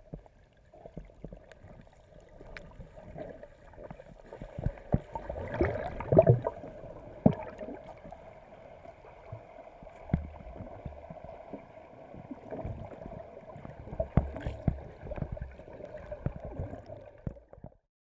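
Water gurgling and splashing in irregular bursts over a steady motor hum with a fixed pitch, as at sea beside a running boat; the sound cuts off suddenly near the end.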